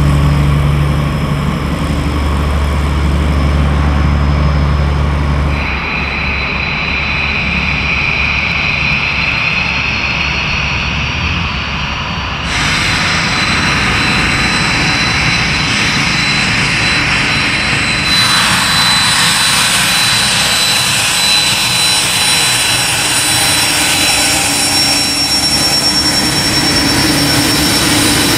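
A Van's RV-10's piston engine and propeller running at taxi power, the sound changing abruptly at edits. From about two-thirds of the way in comes the steady high whine of a Hawker 400XP's twin turbofans as it taxis.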